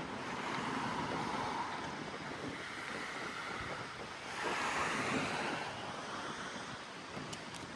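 Ocean surf washing in steadily, with one wave swelling louder about halfway through.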